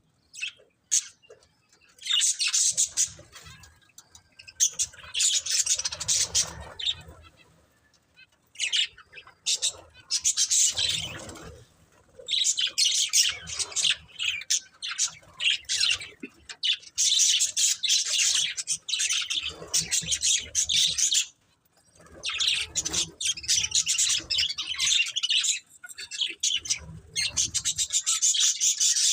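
Budgerigars chirping in busy bursts a few seconds long, with short pauses between.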